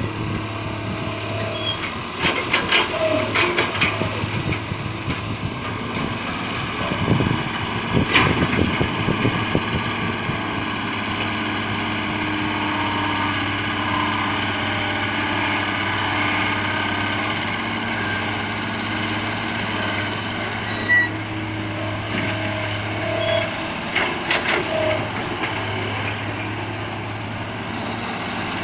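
Diesel engines of dump trucks and a CAT E120 excavator running steadily as a Nissan UD dump truck drives up and the excavator works, with scattered knocks and clanks.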